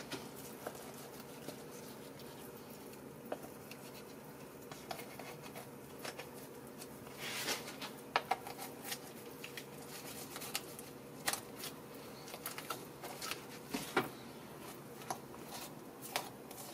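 Boning knife cutting and scraping along a duck carcass's bones on a plastic cutting board: scattered small clicks and scrapes, with a longer scrape about halfway through, over a faint steady hum.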